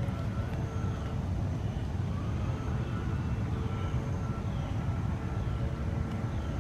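Steady low outdoor rumble, with faint thin high tones held above it and a few faint sweeping calls.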